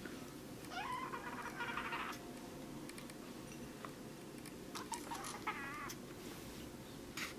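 Kitten mewing twice: a rising call about a second in, and a wavering one around five seconds in.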